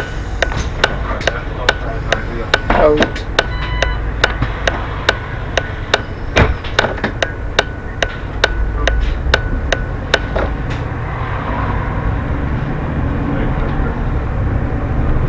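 Bus turn indicator ticking steadily, about two to three ticks a second, over the bus engine's low running. About two-thirds of the way through the ticking stops and the engine grows louder as the bus pulls away from the stop.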